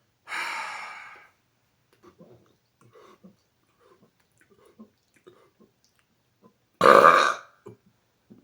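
A man's deliberately forced, very loud burp, short and sudden, about seven seconds in, pushed out on a Coke Zero load in an attempt to reach 120 decibels. It follows a hissing rush of air about a second long near the start and a few faint small throat and mouth sounds.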